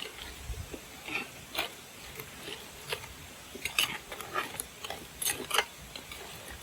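A metal utensil clinking and scraping in a cooking pot as food is stirred: scattered short taps, more frequent in the second half.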